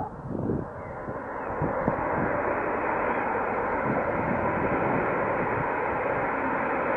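Aircraft engine noise that swells over the first two seconds and then holds loud and steady, with wind gusts buffeting the microphone in the first second.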